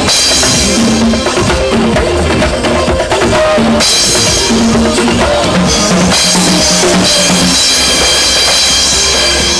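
Live drum kit played hard over backing music with a bass line, with a Sabian cymbal crashing and ringing. The cymbal wash thins briefly a little under four seconds in, then comes back.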